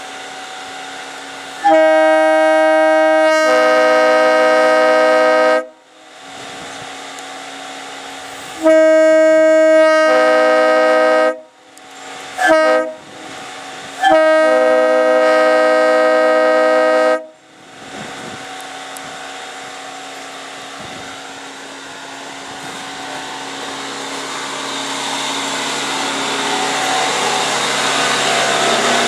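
Leslie RS-3-L three-chime locomotive air horn blown four times, long, long, short, long, in the pattern of a grade-crossing signal. Its chord fills out partway through the blasts as the valve is feathered. The horn is running on only about 60 psi, which makes it sound "sucky". After the last blast a steady noise slowly grows louder.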